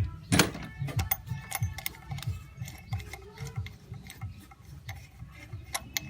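Light metallic clicks and clinks as the idler pulley's bolt is turned out by hand with a loose 15 mm socket and the pulley comes free, with one louder knock about half a second in. A steady low pulsing of about three beats a second runs underneath.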